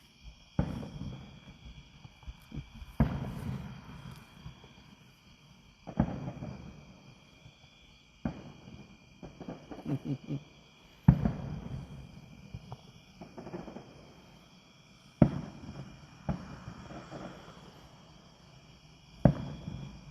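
Aerial fireworks shells bursting at a distance: seven sharp booms a few seconds apart, each trailing off in a rolling echo, some followed by crackling. A steady high trill of insects, crickets, runs underneath.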